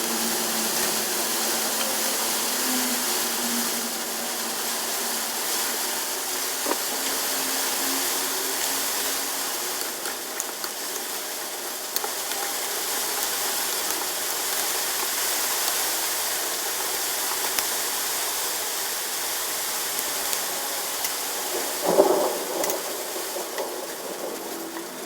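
Food sizzling and simmering steadily in a pan, with a short clatter of utensil or cookware about three seconds before the end.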